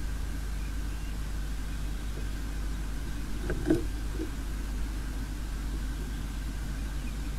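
Steady low rumble with a thin, steady high hum above it, and one short sound about three and a half seconds in.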